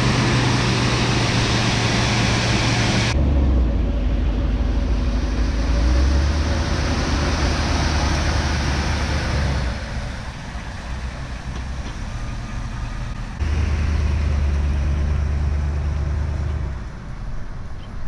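A 1986 Chevrolet Suburban's engine running steadily with the hood open, just after being repaired from a no-spark condition. The sound then changes abruptly to a deeper engine hum as the truck pulls away and drives off, growing quieter toward the end.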